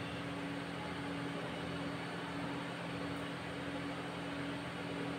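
Quiet steady hum of background room noise: two even low tones over a faint hiss, with no other events.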